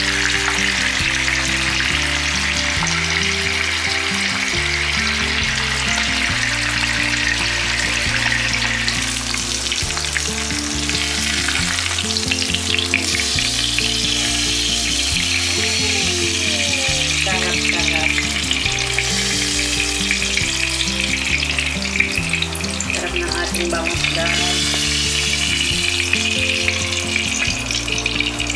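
Butterflied milkfish (daing na bangus) frying in hot oil in a pan, a steady sizzle.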